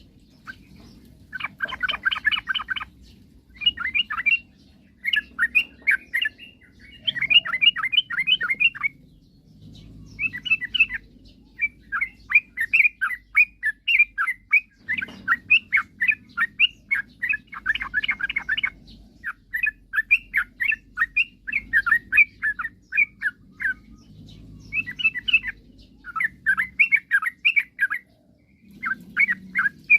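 Yellow-vented bulbul (trucukan) singing vigorously: short, rapid chattering phrases of bubbly notes, each about a second long, repeated with brief pauses throughout.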